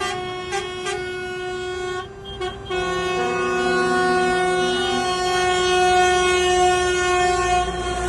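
Truck air horns from a passing lorry convoy sounding in protest: a few short toots, then long overlapping horn blasts held from about three seconds in until near the end, over low engine rumble.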